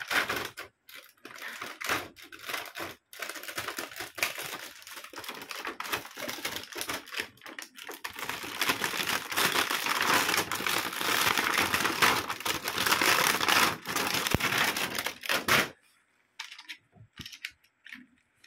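Thin clear plastic packaging bag crinkling and rustling as a plastic toy castle is worked out of it, loudest in the middle stretch. Near the end the crinkling stops suddenly, leaving a few light clicks of small plastic toy pieces being handled.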